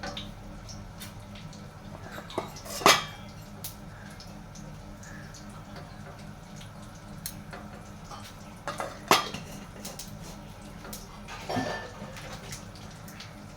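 Scattered metallic clinks and knocks, as metal parts of an oven toaster griller are handled, with two louder clanks about 3 and 9 seconds in, over a steady low hum.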